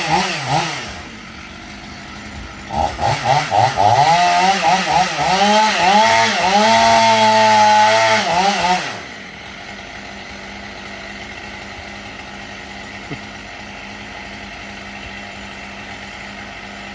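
Two-stroke chainsaw revved in quick bursts, then held at high revs for a couple of seconds before it stops, about nine seconds in. A quieter steady engine hum runs on underneath.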